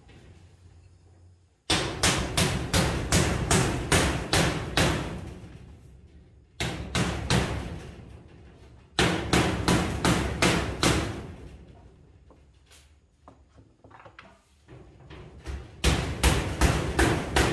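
Hammer blows in four quick runs of about three strikes a second, with short pauses between, as in nailing.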